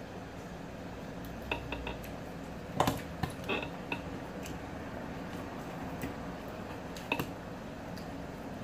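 Tableware clinking during a meal: a handful of sharp clicks and knocks of a spoon and plate, the loudest about three seconds in and another pair near the end, over a steady low hum.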